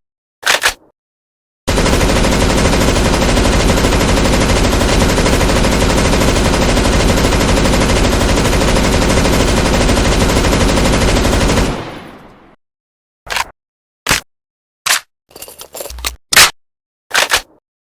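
M249 SAW light machine gun sound effect: one short burst, then a single long, unbroken stretch of automatic fire lasting about ten seconds. Several short, sharp mechanical clacks follow near the end.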